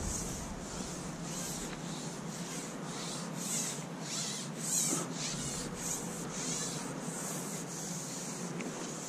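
Rhythmic scraping, in short hissy strokes about twice a second.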